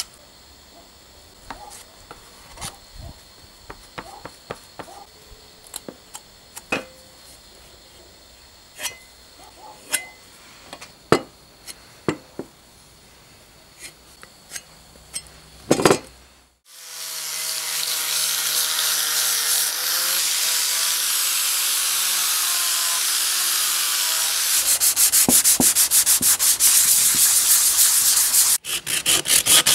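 A metal spatula spreads white filler over the painted tank of a vintage blow torch, making faint scattered scrapes and taps. About halfway through, a much louder steady rubbing noise cuts in. It turns into rapid, regular back-and-forth strokes of sandpaper rubbing down the filler by hand.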